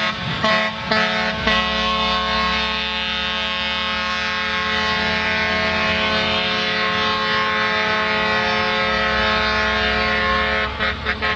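Truck air horns sounding a chord of several tones: a few quick toots, then one long unbroken blast of about nine seconds, breaking into rapid toots again near the end.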